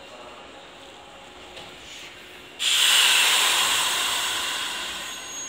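A sudden loud hiss of compressed air from a Nishitetsu electric commuter train, about two and a half seconds in, fading slowly afterwards: the air brakes being released as the train starts to pull out.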